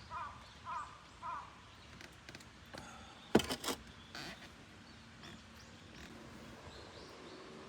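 A crow cawing three times in quick succession. A couple of seconds later comes a short clatter of sharp clicks, the loudest sound.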